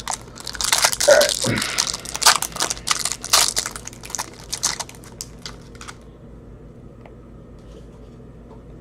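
Plastic wrapper of a trading-card pack crinkling and tearing as it is opened, with a few lighter rustles and clicks until about six seconds in.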